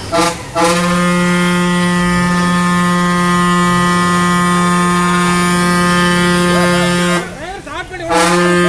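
Vehicle horn held in long, loud, unwavering blasts, cut off briefly just after the start and for about a second near the end before sounding again.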